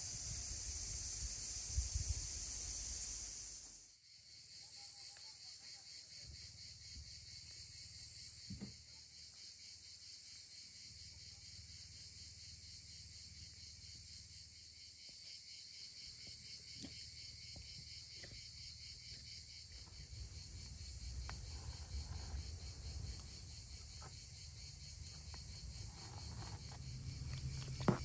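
Insects chirping in a steady, high, finely pulsing drone. It is louder and hissier for the first four seconds, then drops suddenly. A few faint knocks and a low rumble come in during the second half.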